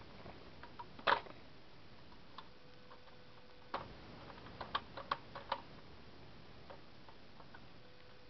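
Small clicks and knocks as the Marx Atomic Cannon toy is handled. They come scattered, the loudest about a second in, then a quick run of clicks from about four to five and a half seconds in.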